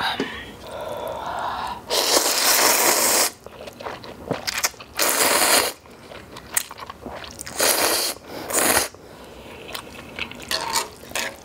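A person slurping spicy instant ramen noodles loudly off chopsticks, four slurps with the first the longest. Between slurps there is chewing with small wet clicks.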